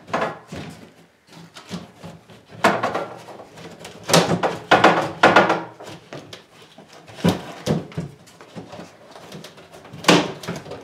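A wooden lower kitchen cabinet being pulled and worked loose from its place: a series of scrapes and knocks, the loudest clustered about three to five seconds in and again near the end.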